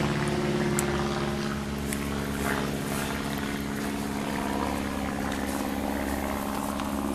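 A steady motor drone that holds one pitch, over a background of even noise.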